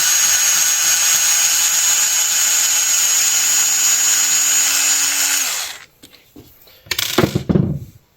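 Power screwdriver running steadily, backing out the frame screws with a 2.0 mm hex bit, then stopping about five and a half seconds in. A few short knocks and clatters follow near the end.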